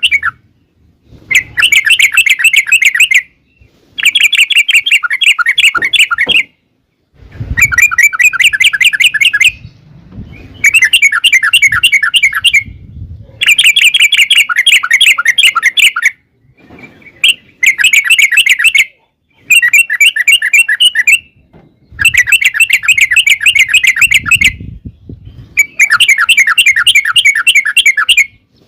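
Yellow-vented bulbul (trucukan) singing in long, rapid rolling chatter phrases, about nine bursts of one to two and a half seconds each with short pauses between.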